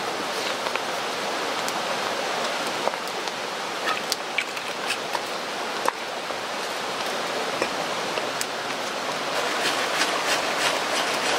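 Steady rain falling, with scattered sharp ticks and pops that grow more frequent near the end.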